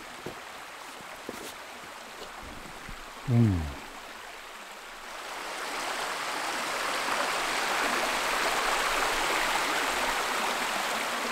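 Mountain stream running over rocks, a steady wash of water that grows louder about halfway through. A short voice-like sound with falling pitch comes about a third of the way in.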